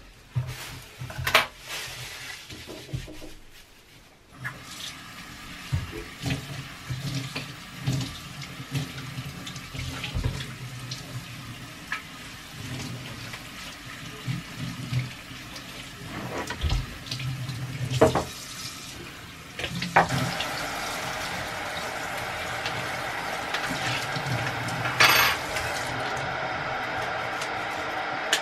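Water running from a kitchen tap, with dishes and utensils clinking and scattered knocks on the counter. The running water turns louder and steadier about two-thirds of the way through.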